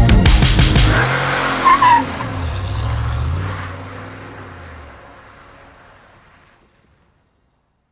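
A motor vehicle's engine revving and falling in pitch, with a brief tyre screech, then fading away to silence.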